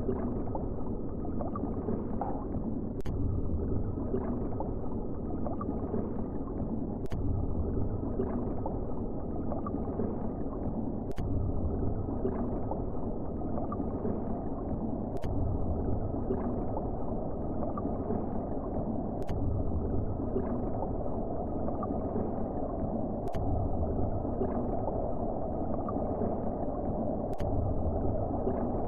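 Ceiling fan running with a noisy bearing: a steady rough drone that swells about every two seconds, with a thin click about every four seconds, once per slow cycle.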